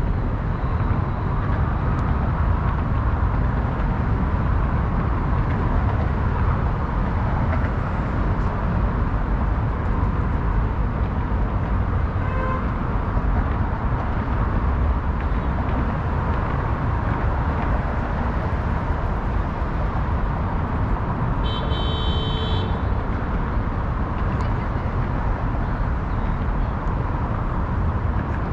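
Steady road traffic noise of passing cars, with a short car-horn toot about 22 seconds in.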